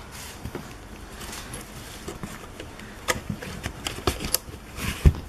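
Handling noise of rubber-jacketed cables and their connectors being moved around a mobile DVR recorder's sockets: rustling, with scattered sharp clicks of the plugs that come thicker in the second half, and a low thump near the end.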